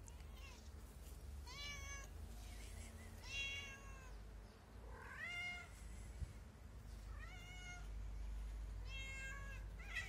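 Cat meowing five times, about two seconds apart, each meow rising and falling in pitch, over a low steady background rumble. A single short sharp tap comes just after the third meow.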